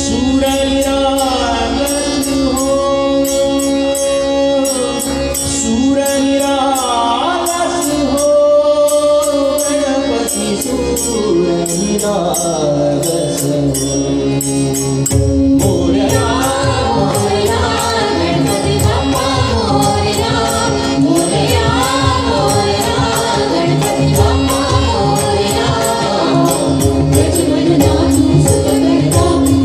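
Live Indian devotional song: a singer holds long notes with gliding ornaments over tabla and other accompaniment, with steady percussion strokes keeping time. About halfway through, the music becomes fuller and busier, with voices moving more quickly over denser drumming.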